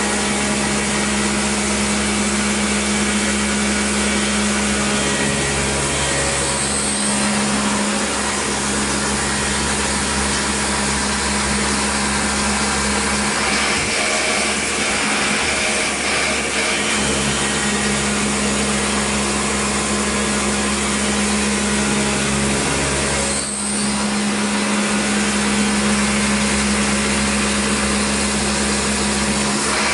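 CNC milling machine spindle driving a half-inch end mill at 4,000 RPM on an adaptive clearing pass through aluminum plate, with flood coolant spraying over the cut. The steady cutting noise is overlaid by a low hum whose pitch steps up and down every few seconds, with a brief dip about two-thirds of the way through.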